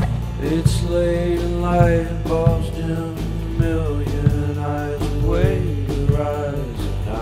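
Soundtrack music: a bluesy song with guitar, bass and drums under long, drawn-out sung notes.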